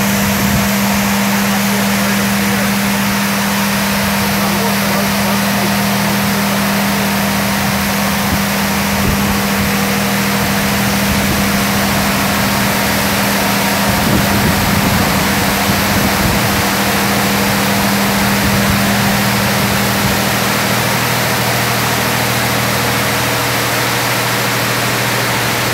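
W360 touchless car wash machine running: high-pressure water jets spraying onto a car in a loud, steady hiss, over a steady machine hum.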